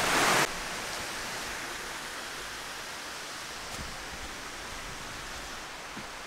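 Steady rushing water of a waterfall and creek, an even hiss. It is louder for the first half second, then drops suddenly to a lower steady level.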